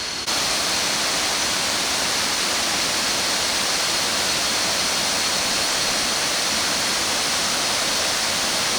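Steady rushing of water pouring down the cascades of Kuang Si Falls, with a good flow early in the rainy season. The sound jumps louder just after the start.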